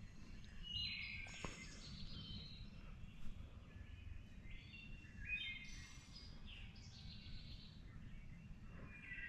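Faint songbirds singing: several short, high chirping phrases over a low steady rumble, with a couple of sharp ticks, the louder one about three seconds in.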